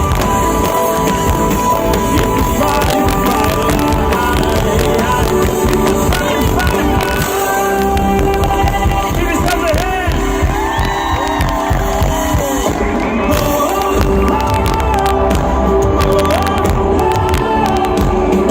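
Live pop-rock band playing loudly at full volume, with drums and sustained instruments, while the crowd cheers and sings along.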